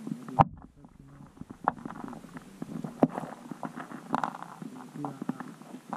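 Muffled voices and low rumbling picked up by an underwater camera, with a loud sharp knock about half a second in and fainter knocks near two and three seconds.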